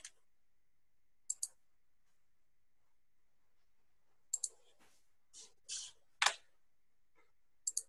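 Faint computer mouse clicks, mostly in quick double-click pairs repeated four times, with a few short scuffing sounds and one louder single tap in the second half.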